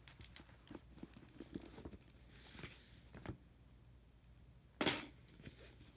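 Scattered small clicks, taps and a soft rustle of art supplies being handled at a desk, with one louder knock about five seconds in.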